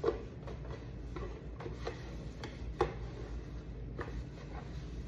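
Wiping and handling inside a refrigerator: rubbing with a few short, light knocks, about four across the stretch, from items and shelf parts being touched while it is cleaned.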